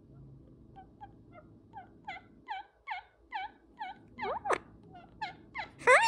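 Indian ringneck parakeets calling in a run of short chirps that fall in pitch, about three a second, growing louder. Near the end come louder rising calls and a loud 'hi'.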